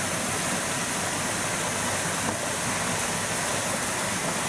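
Steady, even rush of a waterfall, falling water with no breaks or changes in level.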